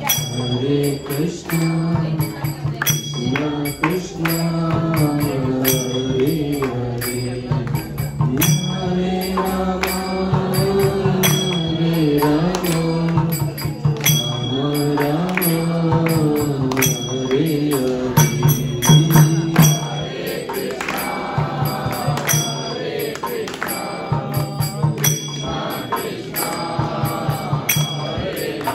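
Devotional chanting sung to a steady beat of drum and small hand cymbals, a kirtan.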